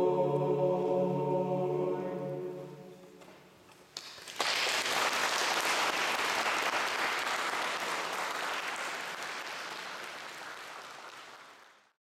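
A men's choir holds the final chord of a song, which dies away over the first three seconds or so. After a short pause, the audience applauds from about four seconds in, and the applause fades away near the end.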